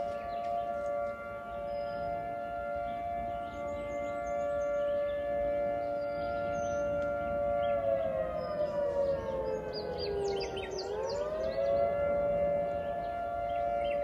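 Federal Signal 2T22 dual-tone rotating tornado siren sounding a steady two-note chord on its monthly test. About eight seconds in, its pitch sags slowly for about three seconds and then quickly climbs back. Birds chirp faintly now and then.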